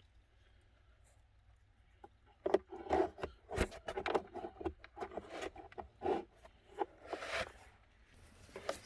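Hard plastic clicks, knocks and scrapes of a car glove box's retaining stay being worked and pulled free by hand, starting about two seconds in.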